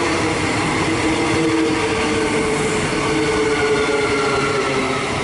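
A Queensland Rail electric multiple-unit train pulling into the platform, wheels and motors running steadily, with a whine made of several tones that slowly falls in pitch as it slows.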